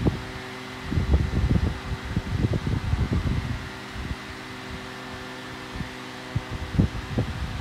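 Two small 8-inch desk fans, a 1970s Lyvia and a 1980s unbranded model, running together on high: a steady motor hum and blade whir with several steady tones, broken by irregular low rumbles of wind noise.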